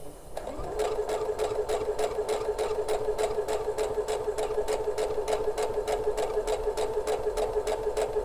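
Brother CS6000i sewing machine sewing a straight seam through fabric: the motor spins up a little under gentle pressure on the foot pedal, then runs at a steady speed with a hum and an even, rapid clicking of the needle, about four stitches a second.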